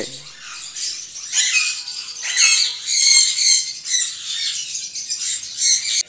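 Small caged parrots squawking and chirping, many short high calls overlapping, loudest around the middle.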